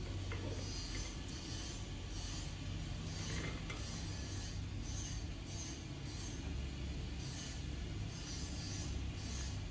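Thin metal pedicure tool scraping along the side of a toenail and its nail fold in short, repeated strokes, over a steady low hum.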